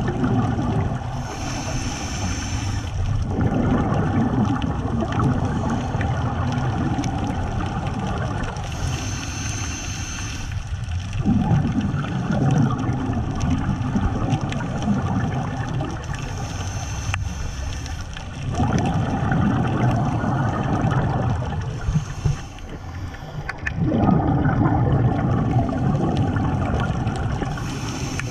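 Scuba diver breathing through a regulator underwater: a hiss of inhaling lasting a second or two, then a longer low rumble of exhaled bubbles, repeating about every six to seven seconds.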